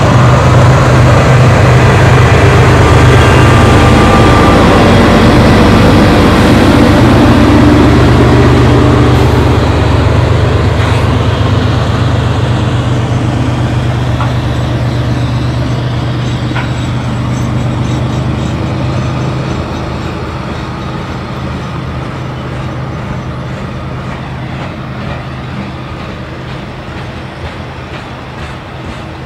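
Four CSX diesel-electric locomotives (two GE ES40DCs, an EMD SD50 and a GE AC44CW) working under load to get a heavy coal train up to speed, a loud steady engine drone that fades as they move off and drops away about twenty seconds in. Under it and after it, the rumble of loaded coal hoppers rolling past.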